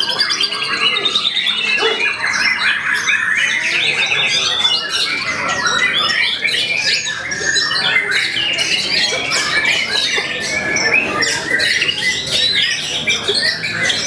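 Young white-rumped shama singing a fast, unbroken stream of varied chirps, trills and whistles.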